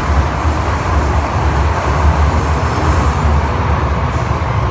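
MTR M-Train electric multiple unit running, heard from inside the passenger carriage: a steady, loud, low rumble with running noise.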